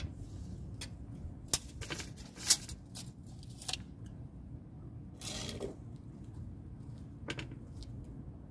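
Small handling noises of a tape measure, pencil and wooden board on a glass-topped table: scattered sharp clicks and taps, the loudest about two and a half seconds in, and a short scraping rush a little after five seconds, over a low steady background rumble.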